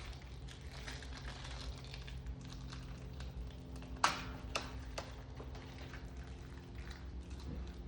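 Small metal hardware being handled: light scattered ticks and two sharp clicks about four seconds in, over a steady low hum.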